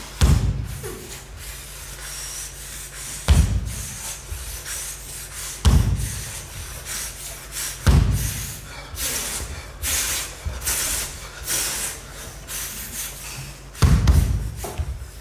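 Heavy thuds of bare feet stamping and landing on a wooden stage floor, five times, with the dancer's hard breathing between them.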